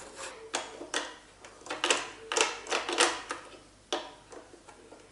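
Hard plastic parts of a cheap metal detector clicking and knocking as they are handled and pushed together: about eight sharp, irregular clicks.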